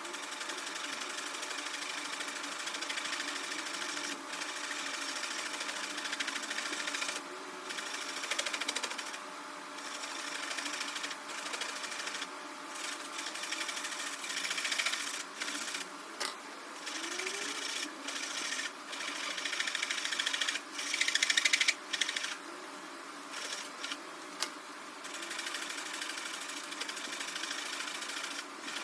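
Wood being turned on a foot-powered spring pole lathe: a rhythmic, fast-pulsing scraping of the cutting tool on the spinning wood, in stretches broken by short pauses.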